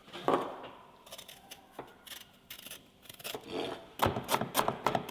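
Vegetable peeler scraping strips off a sweet potato, a few scrapes and light clicks. About four seconds in, a chef's knife starts chopping carrots on a wooden cutting board, quick knocks about four a second.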